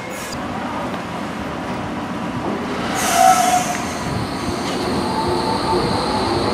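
Docklands Light Railway train running on the rails and arriving at a platform. There is a sudden louder burst about halfway through, then a brief wheel squeal and a thin high steady whine.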